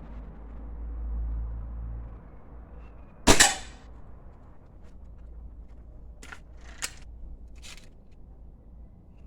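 A Remington Express XP .22 break-barrel air rifle fires once, about three seconds in: a single sharp crack with a short ringing tail. A few softer, shorter clicks follow a few seconds later.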